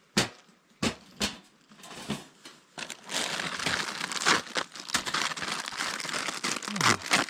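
Packaging crinkling and rustling as it is handled and opened, after a few sharp clicks.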